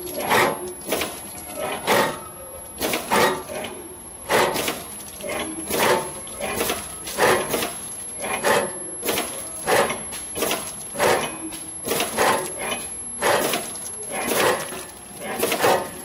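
Clay extruding and packing machine running, its cutting and feeding mechanism knocking and clattering about twice a second.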